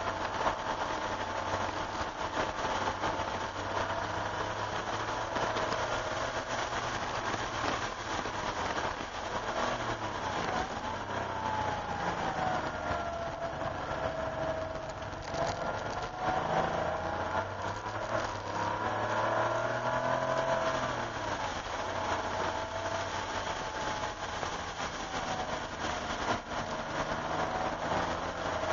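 Cabin sound of a 1988 Porsche 911's air-cooled flat-six engine at track speed, over a steady hiss from the wet road. The engine pitch drops as the car slows for a tight corner about a third of the way in, then climbs again as it accelerates out.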